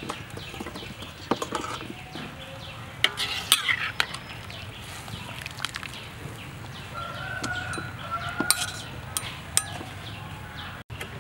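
Clicks and clatter of boiled chicken feet tumbling from a metal scoop into a stainless steel colander, loudest about three to four seconds in. A rooster crows once, about seven seconds in.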